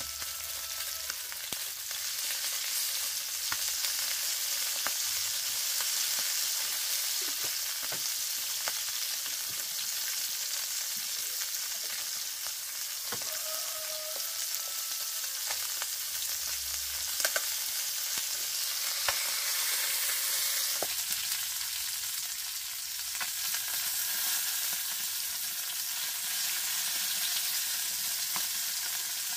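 Small whole fish sizzling steadily as they fry in oil in a pan over a wood fire, with a few light clicks of chopsticks against the pan.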